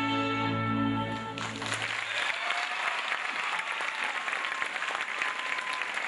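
Music ends on a held chord about a second and a half in, and a theatre audience breaks into applause that goes on steadily.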